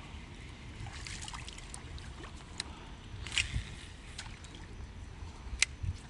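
Water lapping at a small boat's hull under a low wind rumble, with a few short sharp ticks, the loudest about three and a half seconds in and again just before the end.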